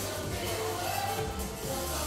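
Background music with a steady bass line and held melody notes.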